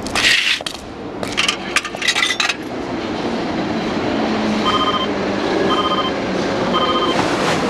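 A short burst of noise and a quick cluster of clicks in the first couple of seconds. Then electronic beeps repeat about once a second, each a high tone with a fluttering lower pair of tones, over steady background noise.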